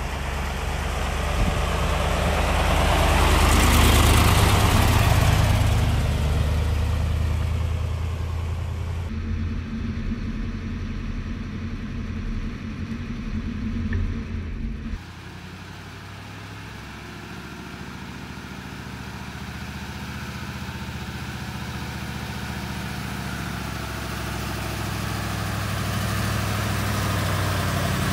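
Diesel engine of a Magirus-Deutz six-wheel tipper truck driving on a dirt track. It swells to its loudest as the truck passes about four seconds in. After two abrupt changes, it slowly grows louder again as the truck approaches near the end.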